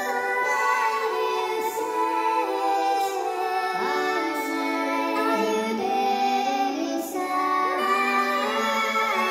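Slow background music of long held notes that step and glide in pitch.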